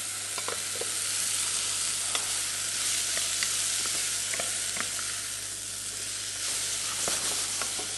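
Sliced potato, leek, onion and garlic sizzling steadily in olive oil in a stainless steel saucepan, stirred with a wooden spatula that gives scattered light knocks and scrapes against the pan.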